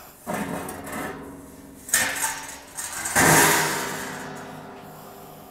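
Metal trailer fender handled on a concrete floor: a sharp clatter about two seconds in, then a louder clang a second later that rings and slowly fades.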